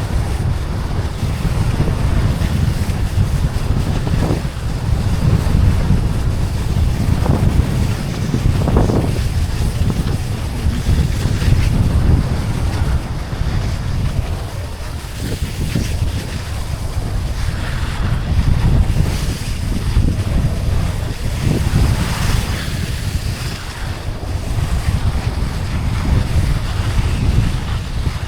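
Wind buffeting the microphone of a camera carried downhill on skis: a loud, steady low rumble with a rushing hiss that swells and fades.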